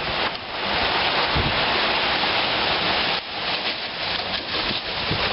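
Heavy rain pouring down in a strong, gusting wind: a loud, steady rush that dips briefly a little past halfway.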